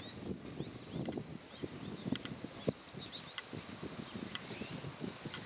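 Steady, high-pitched chorus of summer insects, with short bird chirps repeating over it and a few faint low knocks.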